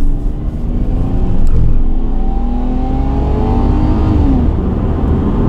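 Lexus IS200's 2.0-litre inline-six engine pulling hard, heard from inside the cabin, muted: its note rises steadily for a couple of seconds, then falls sharply about four seconds in and carries on at a lower pitch.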